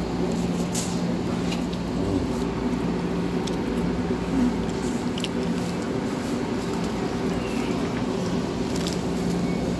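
Steady machine hum with a few steady tones, and scattered small clicks and crackles of sandwich paper being handled.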